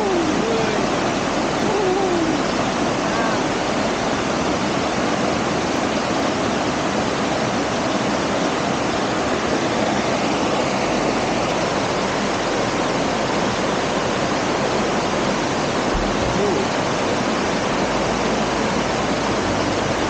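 Small waterfall cascading down granite rock slabs into a pool: a loud, steady rush of water.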